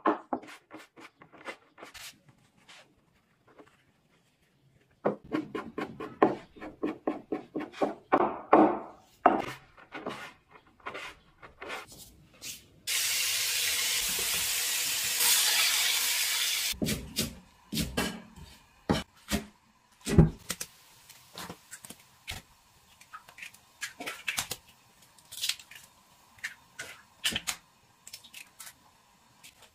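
A cleaver chopping rolled noodle dough on a wooden board in quick strokes. Then a few seconds of loud sizzling from minced meat and green peppers stir-frying in a wok, cut off abruptly, followed by scattered clinks and knocks of a metal spatula in the wok.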